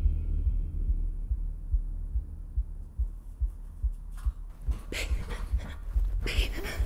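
Low, heartbeat-like throbbing pulses in a horror film's sound design, about two to three a second. From about four seconds in, bedclothes rustle as someone scrambles across a bed.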